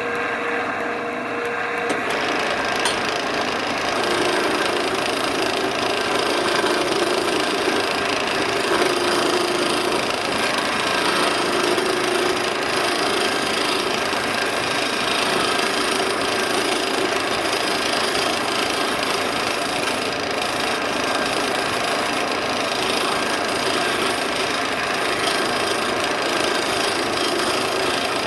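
Wood lathe running steadily with a continuous mechanical hum. About two seconds in, a brighter hiss joins it and stays.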